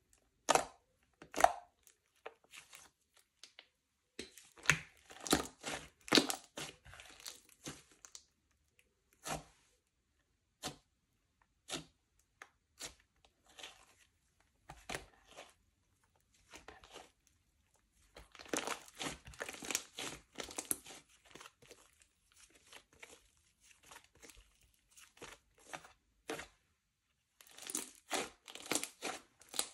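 Slime being squished, stretched and folded by hand: sticky crackles and pops, in three spells of rapid crackling with single pops between.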